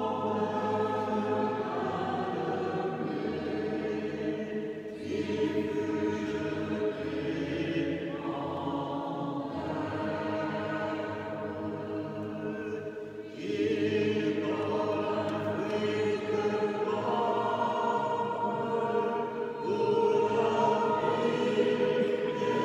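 A choir singing a slow sacred hymn in long held notes, phrase after phrase, over a steady low note; it grows louder from about halfway through.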